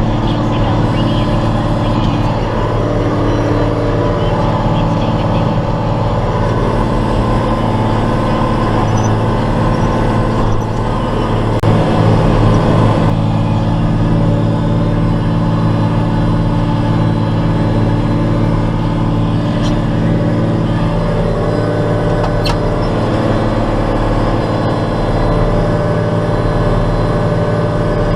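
John Deere 4055 tractor's six-cylinder diesel engine running steadily, pulling a John Deere 567 round baler, with the engine note shifting slightly about halfway through.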